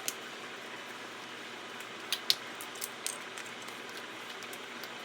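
A handful of light clicks and taps from kitchen handling, two right at the start and a small cluster between about two and three seconds in, over a steady low hiss.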